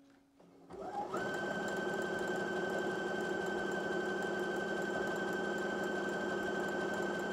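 Brother Innov-is NV1300 computerized sewing machine starting about a second in, its motor spinning up quickly to a steady, even running speed with a constant high whine, as it sews a zigzag stitch. The start of the seam includes the machine's automatic securing stitches.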